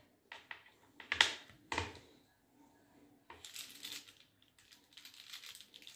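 Knife cutting a set slab of mohanthal on a plastic-lined plate: a few short clicks of the blade in the first two seconds, then softer scraping as the blade is drawn through.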